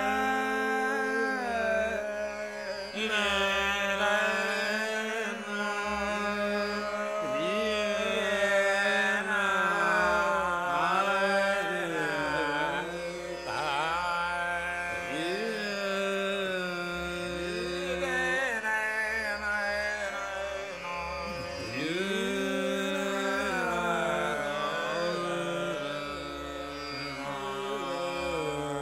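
Male dhrupad singing in raga Puriya Dhanashree: one voice slides slowly between long held notes over a steady tanpura drone, with no drum heard.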